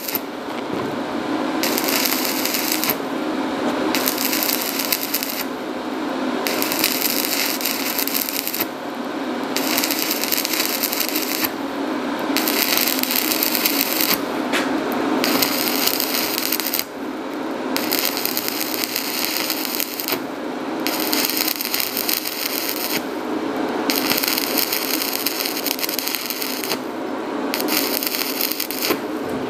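Stick (manual electrode) arc welding of a pipe joint: the arc gives a steady crackle and sizzle. The hiss thins briefly about every three seconds.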